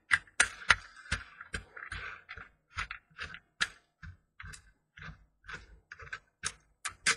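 Irregular small clicks and taps, about two or three a second, from hands unscrewing the fixing on the shaft of a plastic coil-winding jig.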